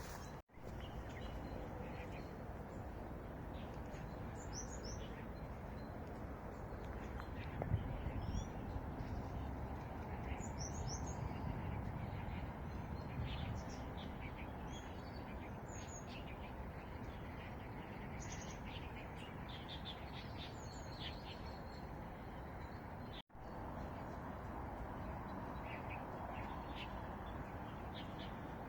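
Small birds chirping in short, high calls, scattered throughout, over a steady low background hum. The sound drops out briefly twice.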